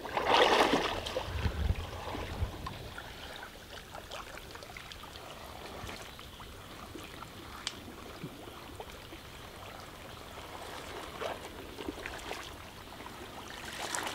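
Pond water sloshing and splashing as a person wades through it, loudest in the first second or two. After that come quieter trickles and small splashes as hands work through the shallow water among the lily pads.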